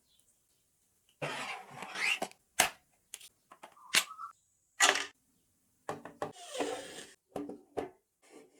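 Hand-work noises: a few short stretches of scraping and rubbing, broken by several sharp knocks or clicks.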